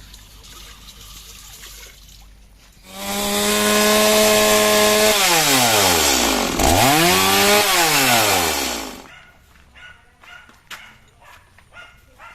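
Chainsaw engine running at high revs for about six seconds, its pitch sliding steeply down and back up midway before it cuts off. Quieter rubbing and scraping comes before it, and a few light knocks after.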